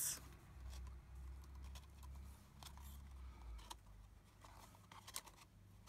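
Faint rustling and a few light clicks of a paper gift box being turned over and handled, over a low steady hum.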